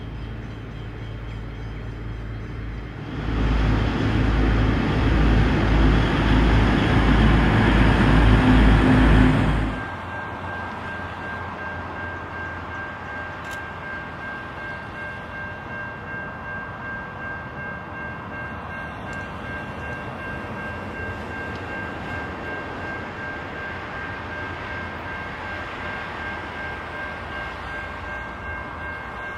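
A V/Line VLocity diesel railcar set running loudly past for several seconds, over the low pulsing throb of an idling 81 class diesel-electric locomotive. It cuts off abruptly about ten seconds in, giving way to a quieter, steady drone with a faint high whine from a distant freight train approaching.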